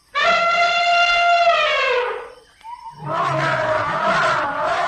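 Elephant trumpeting twice. First comes a clear, held call of about two seconds that drops in pitch at its end, then, after a short gap, a harsher, rougher trumpet.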